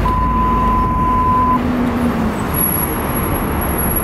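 Steady vehicle and road traffic noise. It carries a single steady beep for about a second and a half at the start.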